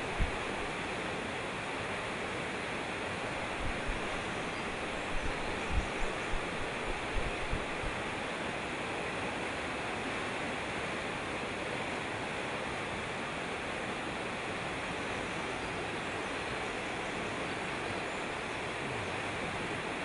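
Mountain stream rushing over mossy boulders: a steady wash of water noise. There are a few brief low thuds in the first eight seconds or so.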